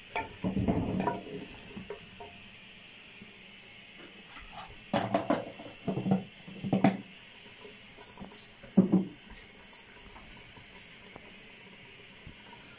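A wooden spoon scraping and knocking against the inside of an earthenware cooking pot as thick curry with meat and turnip chunks is stirred during frying. The stirring comes in a few short, uneven bursts, over a faint steady hiss.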